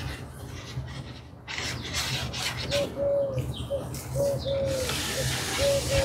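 A dove cooing in repeated phrases, each a short note followed by a longer one that falls at the end, starting about three seconds in. Before that comes a crinkling of packaging being handled.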